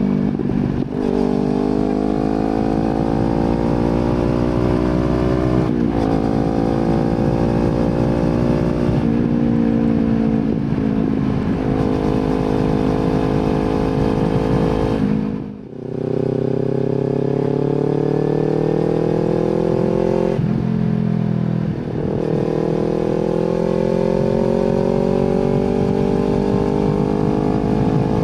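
Kawasaki Z250 with an aftermarket slip-on silencer, accelerating through the gears. The exhaust note climbs steadily in pitch between repeated upshifts, and about halfway through the throttle briefly closes and the sound drops before it pulls again.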